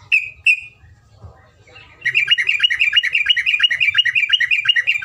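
Terocok, a bulbul, singing: two short sharp notes, then about two seconds in a long rapid-fire trill of evenly repeated notes, about eight a second, running on to the end.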